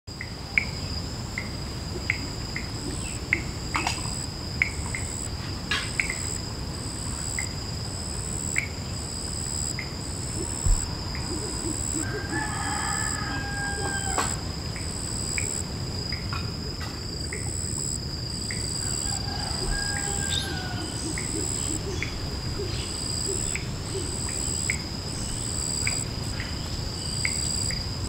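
Insects shrilling steadily, one high tone constant and a higher one pulsing, over a low background rumble. Short dry ticks recur every second or so: the clicking, dripping-knock call of the orange fruit dove. A few brief whistled calls from another bird come about halfway through and again a few seconds later.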